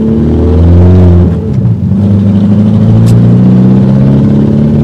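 Car engine running with a loud, deep exhaust drone through a holed exhaust manifold, a note that sounds like a turbo car. The sound dips briefly about a second and a half in, then carries on steadily.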